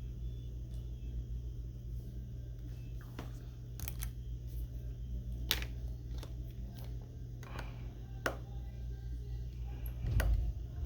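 Scattered light clicks and taps of small repair tools working on an iPhone during a screen replacement, about six in all, the loudest near the end, over a steady low hum.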